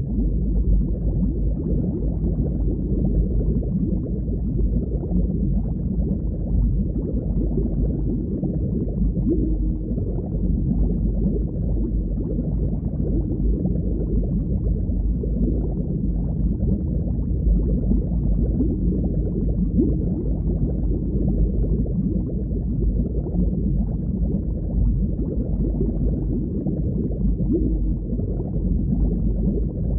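Underwater ambience: a steady, muffled low rumble of moving water, with nothing above the low range.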